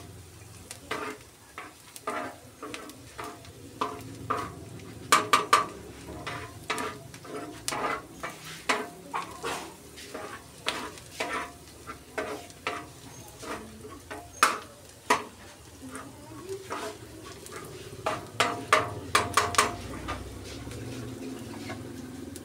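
Metal spatula scraping and tapping on an iron tawa griddle as chopped onions and green chillies are stir-fried, over a soft sizzle. Quick flurries of sharp taps come about five seconds in and again around eighteen seconds, and the strokes thin out near the end.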